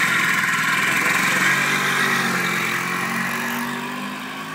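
A 1957 Vespa 125's two-stroke single-cylinder engine runs and rises in pitch as the scooter pulls away in first gear. It then fades as the scooter rides off.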